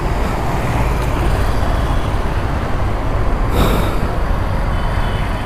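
Steady street traffic and road noise with a heavy low rumble, and a short sharp hiss about three and a half seconds in.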